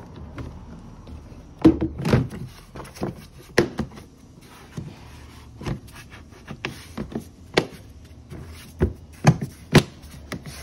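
Hand work under the hood: irregular knocks and clicks of plastic trim and tools being handled. They are loudest about two seconds in and twice near the end.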